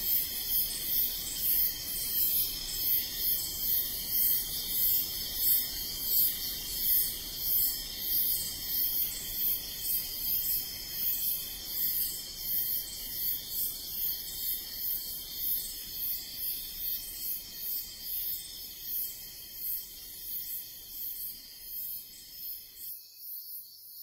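Night chorus of crickets: a steady high-pitched trilling with a louder, very high chirp pulsing about twice a second. It fades out in the last second.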